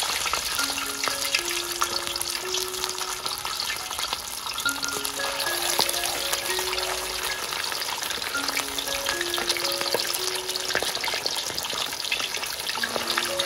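Whole fish deep-frying in hot oil in a steel wok: a steady crackling sizzle. A soft melody plays faintly underneath.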